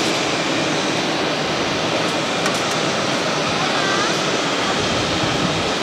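Jet engines of an Airbus A320-family airliner running at taxi power as it rolls along the taxiway: a steady, even rushing noise.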